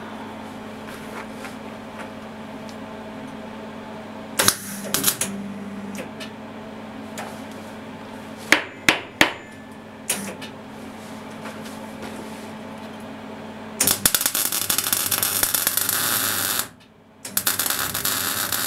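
A steady hum with a few sharp clicks and knocks, then from about 14 s in the loud, even crackle of a MIG welding arc laying a bead on steel pipe. It stops briefly about two and a half seconds later and starts again near the end.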